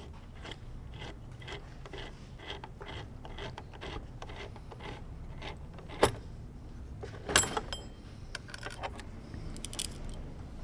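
Hand tools and small metal parts clicking, tapping and clinking while the convertible top frame is being taken apart: a sharp knock about six seconds in and a brief ringing metallic clink just after seven seconds.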